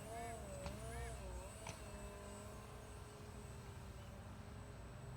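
Electric motor and 6x4.5 propeller of a small RC airplane whining in flight, faint, the pitch wavering up and down with throttle and distance. There are two short clicks in the first two seconds.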